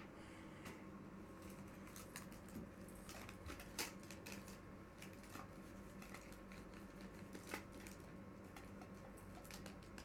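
Faint rustling, crinkling and small clicks of hands pressing tape and aluminium foil onto the end of a cardboard tube, with two sharper clicks, one about four seconds in and one about seven and a half seconds in, over a steady low room hum.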